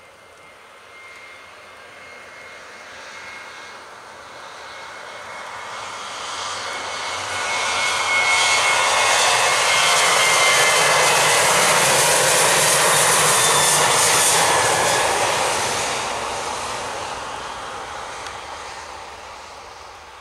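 Boeing 737-800's CFM56-7B turbofans at takeoff thrust as the jet rolls past on a wet runway, a rising whine and rushing noise that swell to a loud peak around the middle and fade as it moves away.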